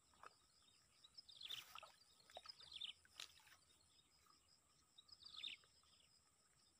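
Faint open-air ambience: a bird gives short, falling chirping calls in three brief groups over a steady, high insect buzz, with a couple of soft clicks.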